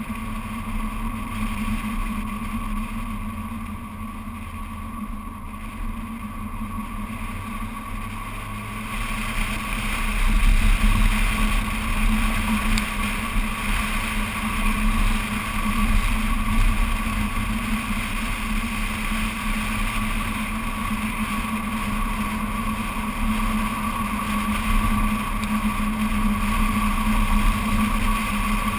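BMW Z4 Coupé driving on a road, heard from a camera mounted outside the car by the door mirror: a steady rush of engine, tyre and wind noise, growing louder about nine seconds in.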